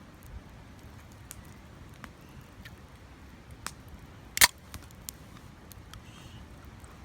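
Wood fire crackling with scattered small ticks and one sharp, loud pop about four and a half seconds in.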